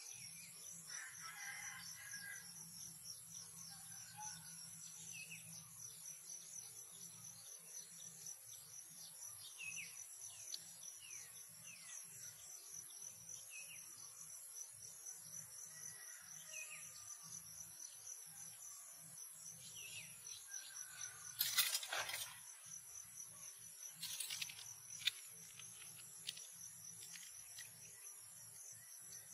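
A steady high-pitched insect chorus, like crickets, drones without a break, with faint short chirps beneath it. About two-thirds of the way through, a couple of brief, louder, sharp sounds stand out.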